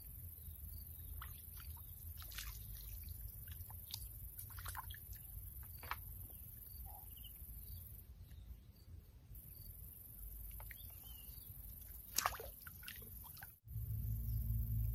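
Quiet waterside ambience with small drips and splashes of water and scattered light ticks, over a steady high insect hiss. Near the end the sound cuts out briefly, and a louder low steady hum takes over.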